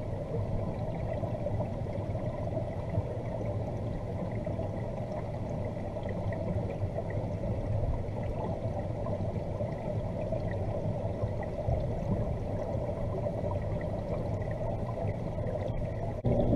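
Muffled underwater sound of a koi pond picked up by a submerged camera: a steady low wash of moving water with a faint low hum. Just at the end it turns louder, with a stronger low hum.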